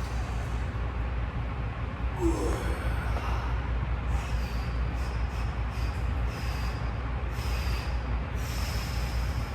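A lifter's sharp, hissing breaths, repeated at uneven intervals through a heavy bench press set, over a steady low hum. There is a brief squeak about two seconds in.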